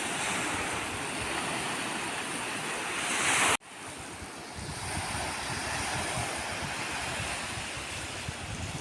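Ocean surf washing ashore, with wind on the microphone. The sound swells louder, cuts off abruptly about three and a half seconds in, then the surf comes back.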